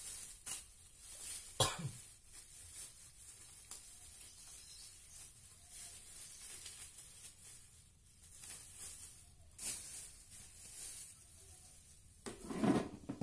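Clear plastic bags crinkling and rustling as the stand fan's plastic-wrapped parts are handled, in irregular bursts, with a few louder handling knocks near the end.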